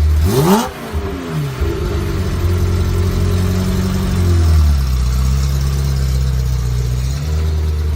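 Ferrari F355 Challenge's V8 engine blipped once, revs shooting up and falling back about half a second in, then running steadily with the engine speed dropping a little about halfway and picking up again near the end.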